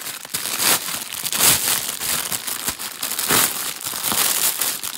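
Crinkling of a plastic bag holding small packets of diamond-painting drills as it is handled, in irregular rustles.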